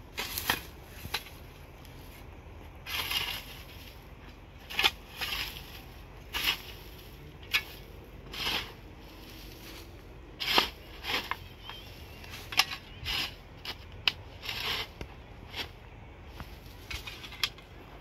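A spade scraping and chopping into dry, stony ground in irregular strokes, roughly one a second. The strokes mix short sharp knocks of the blade with longer gritty scrapes.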